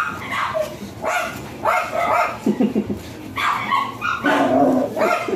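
A dog barking repeatedly, about half a dozen high, drawn-out barks with short gaps between them.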